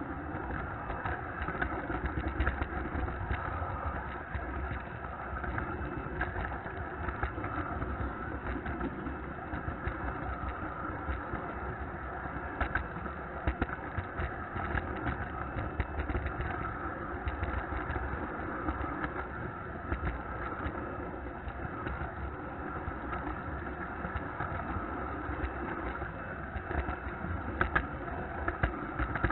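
Model train rolling along the track, heard from a camera riding on a flat car: a steady rumbling whir of wheels on rails, with scattered clicks as the wheels cross turnouts.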